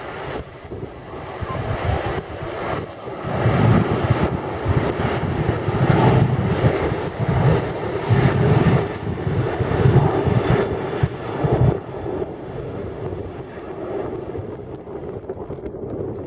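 Jet engines of a Boeing 737-900 running as the airliner moves along the runway. The roar swells to its loudest through the middle, with gusty low rumble from strong wind on the microphone, then drops back to a steadier, lower level about twelve seconds in.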